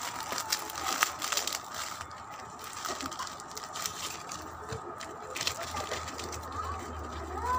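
Clear plastic bag of chicharon (pork rinds) crinkling and crackling as it is handled, in irregular sharp rustles that bunch up in the first couple of seconds and again past the middle.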